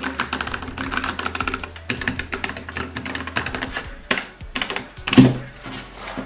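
Typing on a Keychron K3 Pro low-profile mechanical keyboard with brown switches: a fast, uneven run of key clicks, with one heavier thump about five seconds in.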